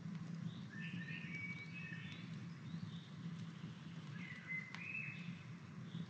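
Small birds twittering in two short bouts of chirps over a low steady rumble, with an occasional sharp snap from a small wood campfire.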